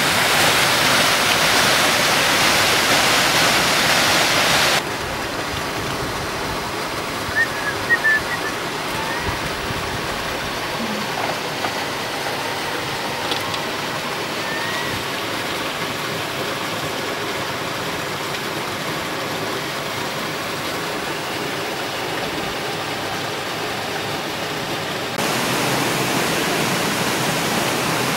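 Stream water rushing over rocks in a steady rush. It drops suddenly to a quieter rush about five seconds in and rises again near the end.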